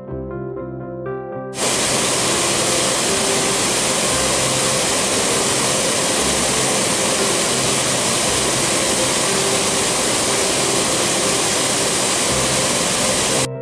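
Waterfall, a loud steady rush of falling water that cuts in suddenly about a second and a half in and stops abruptly near the end, with soft instrumental music faintly beneath it. Before the water comes in there is only the soft instrumental music.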